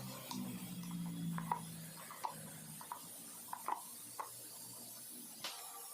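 Light clicks and clinks of hand tools on metal, about eight of them at irregular intervals, over a faint low hum in the first two seconds.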